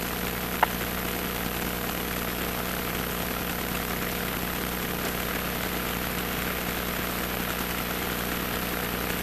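Cessna 150's four-cylinder Continental O-200 engine idling steadily, with one short click about half a second in.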